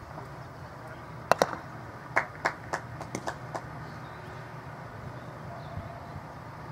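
A croquet mallet strikes a ball once about a second in, a sharp double knock. About a second later comes a short run of six or so more sharp knocks at an even pace, over a steady low background hum.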